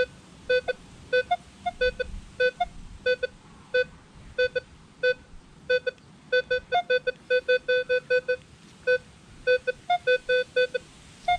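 Minelab Equinox 800 metal detector sounding its target tone as the coil is swept back and forth over a buried target. Dozens of short beeps come, often in pairs, mostly at one lower pitch with a few a little higher.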